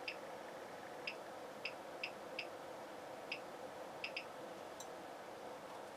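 Small, light clicks of a detented control knob being turned step by step, about ten at uneven intervals, over a steady faint hiss.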